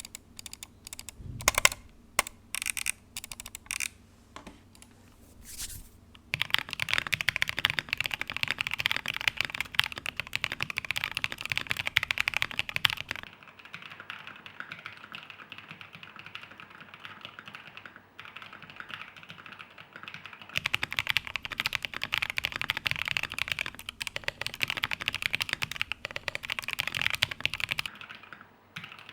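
Typing on a TINT60 custom mechanical keyboard. There are a few separate keystrokes over the first six seconds, then fast continuous typing, softer for a stretch in the middle and loud again until near the end.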